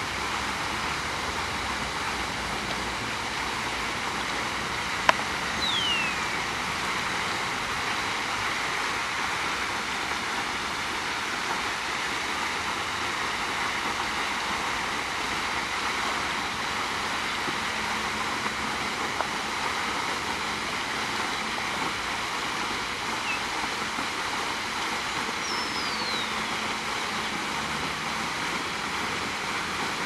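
Steady rushing background noise, with a short descending bird whistle about five seconds in and another near the end. A single sharp click comes just before the first whistle.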